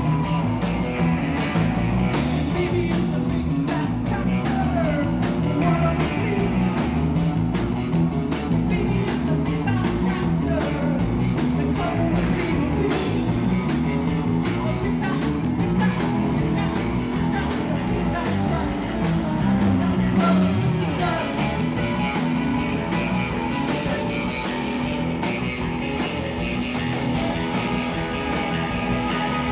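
Live rock band playing: electric guitar, bass guitar and drum kit, with a woman singing lead.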